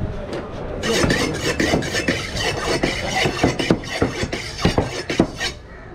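A large curved fish knife scraping and knocking along a barracuda on a wooden cutting board. It makes a harsh rasping noise broken by many sharp knocks, starting about a second in.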